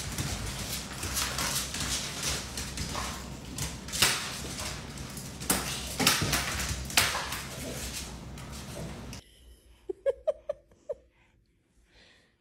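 A pit bull-type dog scrambling and bumping about on a hard floor: a steady rustling hiss with several sharp knocks and thumps between about four and seven seconds in. After about nine seconds it drops to quiet, with a few short, soft vocal sounds.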